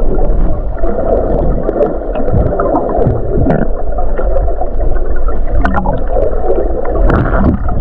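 Loud, steady, muffled rushing and gurgling of water, picked up by a camera held underwater.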